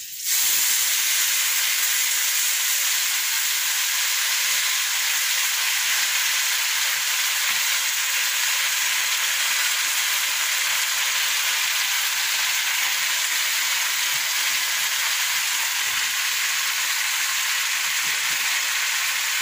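Leafy greens (saag) frying in hot oil with onion and garlic in an iron wok: a loud, steady sizzle that starts abruptly at the very start and holds on without a break.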